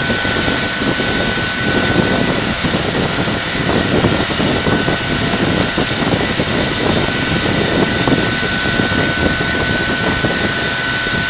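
5 MW geothermal power plant running: a steady rushing noise of steam and machinery, with a constant high-pitched whine on top.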